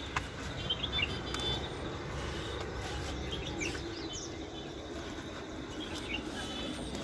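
Outdoor ambience: small birds chirping now and then over a steady low rumble, with a few light knocks in the first second or two.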